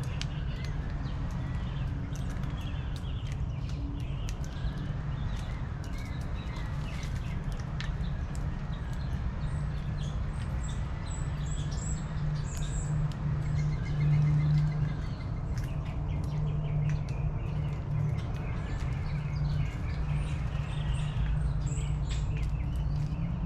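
Backyard birds chirping and calling: repeated arching calls and short high chirps, with scattered light clicks, over a steady low hum.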